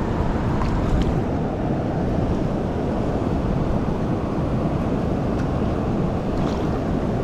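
Steady rush of water pouring through a spillway at full flow, a continuous noise without let-up.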